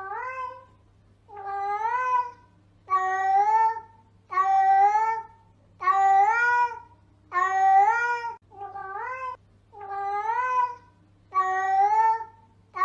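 Domestic cat meowing again and again, about nine meows each about a second long, every second and a half or so, each rising and then easing in pitch.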